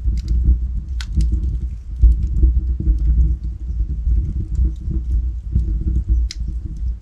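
Logs burning in a fireplace: the flames make a steady low roar, with scattered crackles and pops from the wood. The sharpest pops come about a second in and again near the end.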